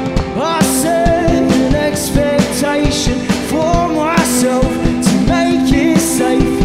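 A rock band playing live: two electric guitars, a bass guitar and a drum kit with regular cymbal hits, with a melodic line that bends in pitch over the top.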